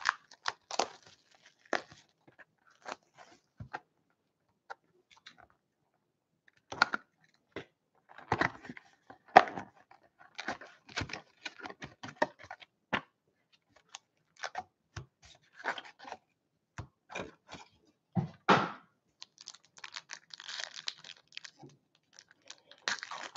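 A cardboard box of 2017-18 Upper Deck Ice hockey cards being unwrapped and opened by hand and its foil card packs handled: scattered crackles, tears and taps, with denser crinkling of the foil pack wrappers near the end.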